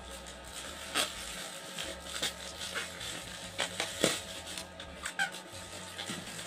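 Plastic courier mailer and bubble wrap rustling and crinkling as they are handled and pulled apart, with irregular sharp crackles, the loudest about four seconds in.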